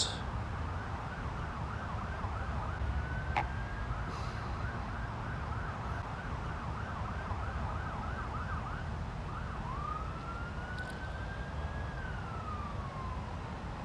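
Emergency-vehicle siren sounding a fast yelp, then switching about nine seconds in to a slow wail that rises and then falls, over a steady low rumble.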